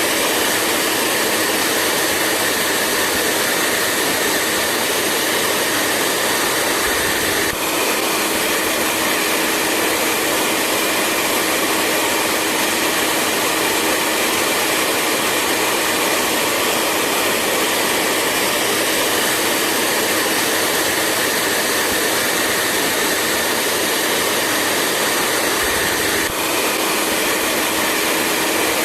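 Hair dryer running steadily: a continuous rushing whoosh of air with a faint steady hum under it, dipping briefly twice, about a third of the way in and near the end.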